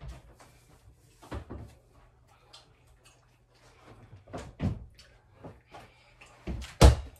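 A series of irregular thumps and knocks a second or more apart, the loudest near the end.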